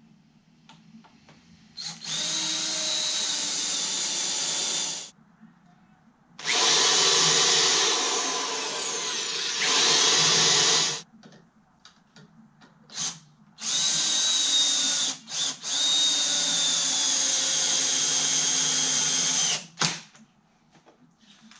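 Electric drills running in three main runs of a few seconds each, starting about 2, 6.5 and 14 seconds in, with short trigger blips between: countersinking holes and driving screws into a 2x4 wooden frame.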